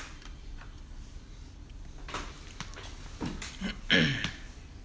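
Handling noise of a shrink-wrapped cardboard card box being moved on a wooden tabletop: a few short scrapes and squeaks, the last and loudest about four seconds in, some falling in pitch.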